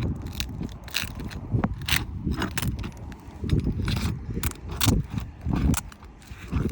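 Irregular scraping, clicking and knocking of a roof snake shingle tool, a flat metal pry bar, working under asphalt shingles to break the seal strips and loosen the old nails.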